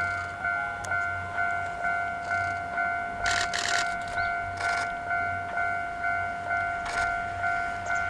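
Japanese level-crossing warning bell ringing, an electronic ding repeating evenly at nearly two strikes a second. A few short bursts of clicking sound over it.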